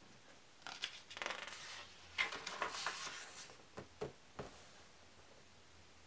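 A page of a hardcover book being turned by hand: paper rustling and sliding for about four seconds, with sharp crackles of the sheet, then a few crisp ticks as it settles.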